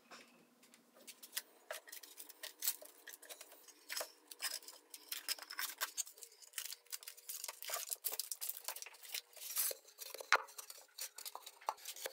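Many quick, irregular clicks and light knocks of wooden staves being handled, as a row of taped Douglas fir staves is stood up and bent round into a cylinder.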